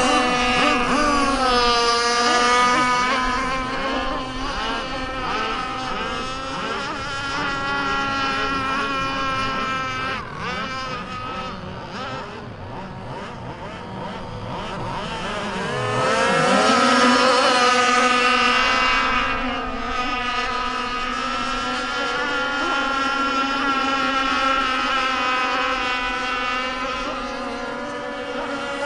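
51" Micro Burst RC boat's motor running at speed, its pitch wavering as it throttles and turns. It grows fainter in the middle, dips sharply in pitch and climbs back about sixteen seconds in, then runs louder and steadier.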